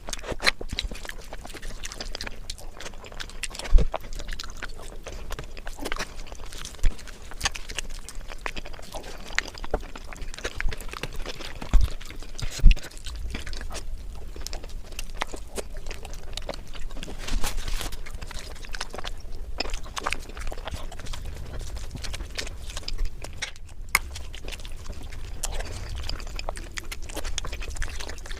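Close-miked eating of spicy biryani with egg and gravy: chewing, with many small wet mouth clicks and smacks. A few low thumps stand out, the loudest two close together near the middle.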